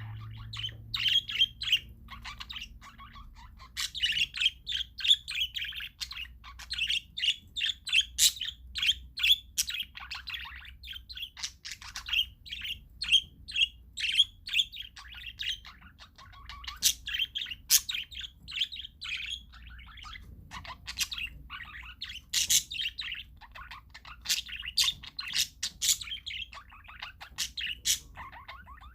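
A flock of parakeets chirping: many short, quick calls several to the second, in busy runs with brief lulls between them.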